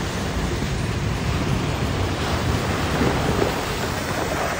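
Water splashing and rushing as a Toyota 4Runner SUV drives through a creek crossing, its tyres ploughing through the water and throwing up spray.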